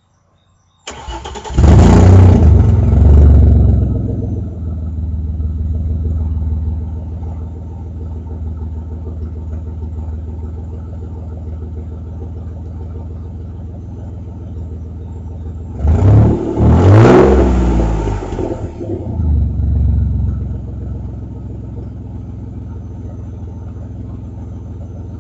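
Audi A4's 2.8-litre 12-valve V6 starting about a second in, loud at first and then settling to a steady idle; around the middle it is revved briefly, rising and falling back to idle. An exhaust leak just after the flex pipe, before the catalytic converter, leaves one bank open, which gives it a 'tractor sound' on starting and accelerating.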